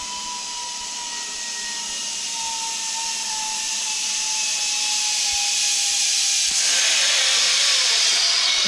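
Zip line trolley pulleys running along the steel cable as a rider comes in, a steady whirring hiss that grows louder, with a faint tone slowly falling in pitch. It swells sharply about two seconds before the end as the rider reaches the platform.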